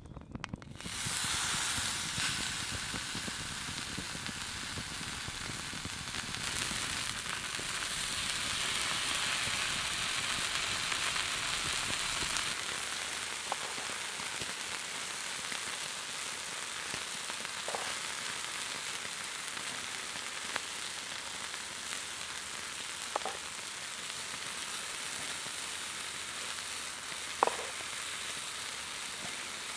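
Raw meat sizzling on a slate stone heated over a wood fire. The sizzle starts suddenly about a second in as the meat goes onto the hot stone, then carries on as a steady hiss. A few sharp pops come through in the second half.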